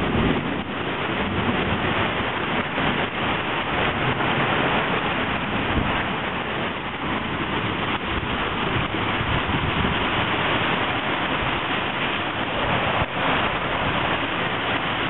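Rain pouring steadily onto a flooded street and pavement, with gusts of wind buffeting the microphone about the start and again near the end.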